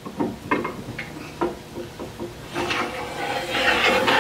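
Lathe banjo set down on the metal lathe bed with a few short knocks, then slid along the freshly lubricated bed ways in a louder scraping rub that builds over the second half.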